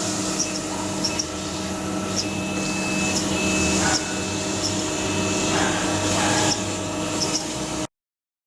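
A small machine tool's spindle running steadily as it cuts, a steady whine over a hum with faint clicks, stopping abruptly near the end.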